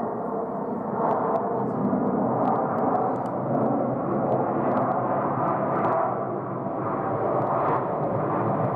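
Delta Airbus A350's Rolls-Royce Trent XWB jet engines making a steady roar that swells about a second in and holds.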